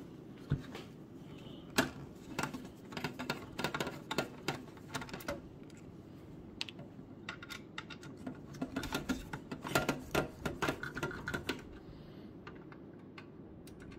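A hand screwdriver backing a screw out of the Synology DS1621+'s metal chassis, heard as irregular light clicks and taps. The clicks come in two busier runs, a couple of seconds in and again around ten seconds in.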